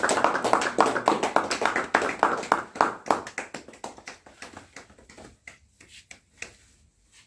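A small group clapping hands quickly and steadily, the claps thinning out and dying away about five seconds in.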